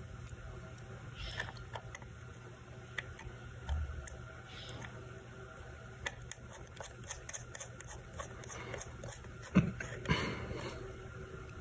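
Small clicks and taps of graphics card parts being handled and fitted back together during reassembly, with one sharper knock about nine and a half seconds in followed by a brief scraping rustle, over a low steady hum.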